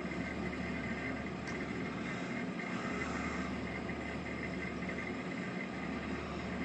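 EENOOR PA600 portable air conditioner running in its low-energy night mode: a steady, loud hum with several fixed tones over an even rush of air.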